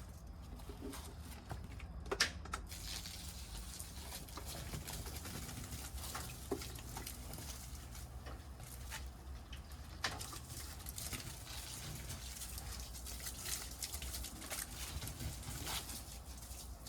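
Wood bonfire crackling, with irregular small pops over a low steady rumble and a sharper snap just over two seconds in and another about ten seconds in.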